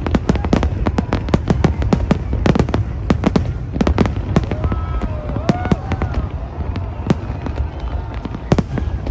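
New Year fireworks display: a rapid, unbroken stream of sharp bangs and crackles from bursting shells, several a second, over a steady low rumble.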